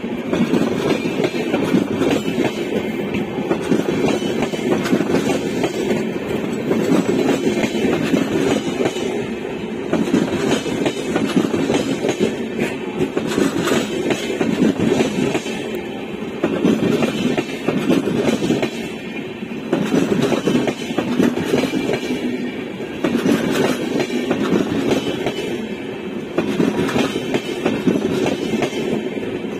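Express train's passenger coaches passing at speed on the adjacent track without stopping: a loud, steady rumble with the rhythmic clatter of wheels over rail joints, swelling and easing as each coach goes by.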